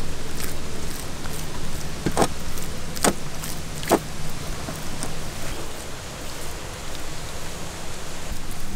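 Hands rubbing and slapping thick wet masala paste onto the skin of a large catfish, with three sharp wet slaps about two, three and four seconds in over a steady hiss.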